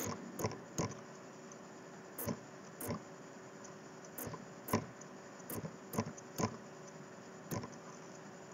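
About a dozen faint, short clicks at irregular intervals, some in quick pairs, as moves are stepped through on a computer chess board, over a faint steady hum.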